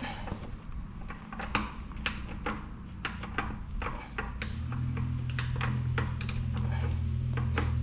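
Irregular light clicks and taps, about two or three a second, as of tools and parts being handled during brake work, with a steady low hum coming in about halfway through.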